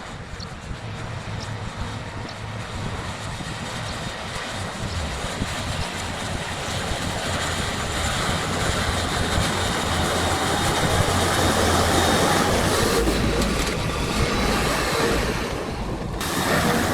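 A farm tractor works a field, its engine running under load with the clatter of the implement. It grows steadily louder over the first twelve seconds, dips and changes abruptly about a second before the end, then carries on.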